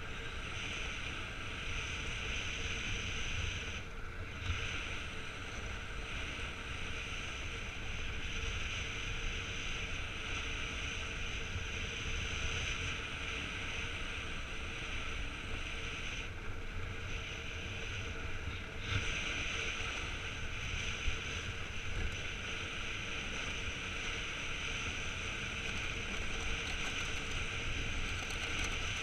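Iceboard runners hissing steadily over clear lake ice while under sail, with a low rumble of wind on the microphone. The hiss drops away briefly about four seconds in and again for a couple of seconds past the middle.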